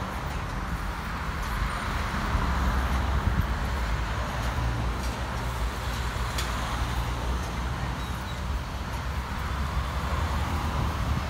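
Road traffic passing on a street, a steady wash of tyre and engine noise with a deep rumble that swells a little a couple of seconds in.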